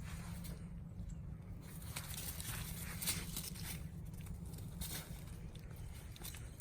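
Footsteps outdoors, a scatter of irregular short scuffs and knocks, over a steady low rumble of wind on the microphone.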